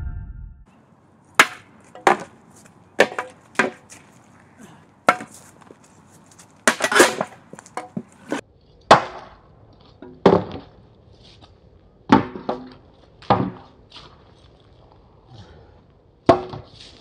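Wooden practice swords striking round shields during sparring: irregular sharp wooden knocks, some in quick pairs, with a short flurry of blows about seven seconds in.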